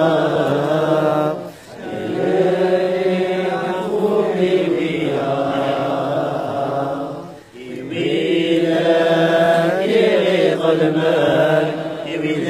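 A crowd of mourners chanting a Kabyle Christian hymn at a graveside. The notes are long and drawn out, in phrases broken by two short pauses, about a second and a half in and again at about seven and a half seconds.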